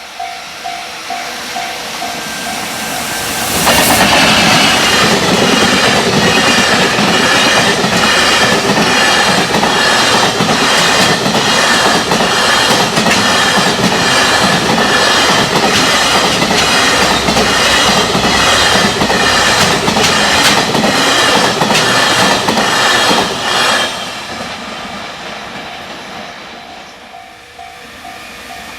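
Japanese level-crossing warning bell dinging, then about four seconds in an electric freight train passes at high speed. Its wheels clatter rhythmically over the rail joints for about twenty seconds. The train's noise then falls away and the crossing bell is heard again near the end.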